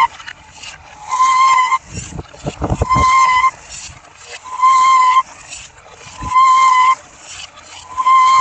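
Vehicle reversing alarm beeping: one steady high tone, about half a second long, repeating roughly every one and a half to two seconds. A short burst of low rumbling clatter comes about two seconds in.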